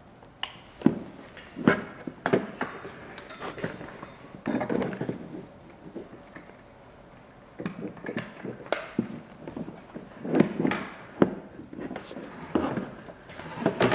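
Hands handling Ethernet cables and a small plastic router: scattered sharp clicks and knocks as RJ45 plugs go into ports and the router is moved, with short stretches of cable rustling between them.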